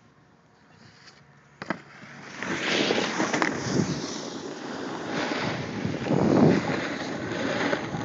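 A snowboard sliding and scraping over packed snow, with wind buffeting the phone's microphone. It comes in about two seconds in, after a single click, and rises and falls in surges.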